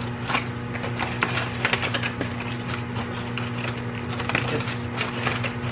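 Aluminium foil crinkling and crackling in quick, irregular clicks as it is crumpled and pressed down over a roast in a roasting pan. A steady low electrical hum runs underneath.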